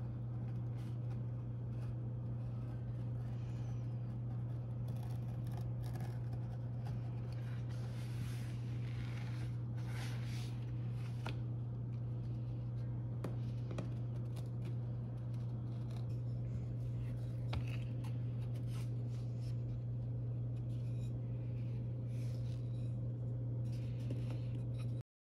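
Utility knife blade slicing and scraping through leather in short, irregular strokes over a steady low hum.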